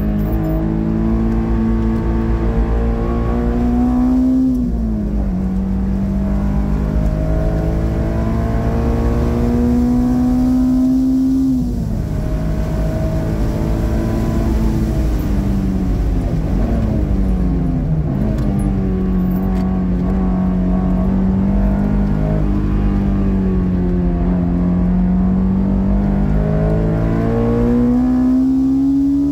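Honda S2000's four-cylinder engine at high revs under acceleration. Its pitch climbs steadily, then drops sharply at each gear change, about four times, with a dip and recovery near the middle.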